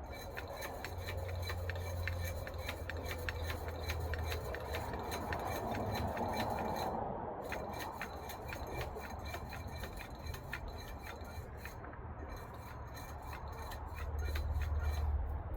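Rapid, evenly spaced clicking and scraping from the tool work of pressing a metal sleeve into a shock absorber's rubber bushing, several clicks a second in three runs with short pauses between, over a low steady hum.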